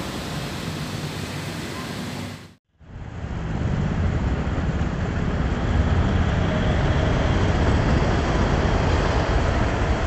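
City road traffic: motorbikes and cars passing close by as a steady noisy rumble. It cuts out suddenly for a moment about two and a half seconds in, then comes back louder and heavier in the low end.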